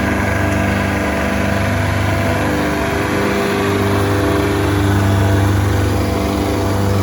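Diesel engine of a 2005 Greenmech Fast Tow wood chipper running steadily.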